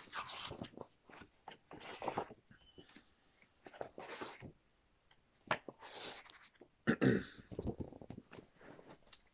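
Pages of a picture book being opened, flipped and handled: a string of short, irregular paper rustles and flaps, with a few soft breathy mouth sounds in between.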